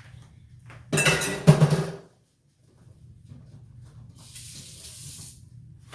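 Metal pot or pan clattering loudly with a ringing scrape for about a second, while chicken is added to the dressing. A soft hiss follows about a second later.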